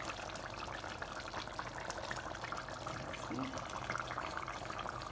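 Chicken and mixed vegetable curry simmering in the pan: a steady bubbling hiss with fine crackles and a low hum underneath.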